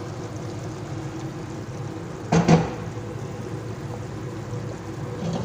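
Steady low hiss of a pot of water and chicken on the stove, with one short, loud knock against the pot about two and a half seconds in.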